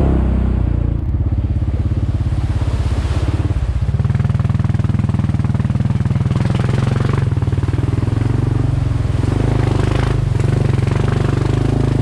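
Honda ATV's single-cylinder four-stroke engine running while riding a trail, easing off briefly about a second in and picking up again around four seconds.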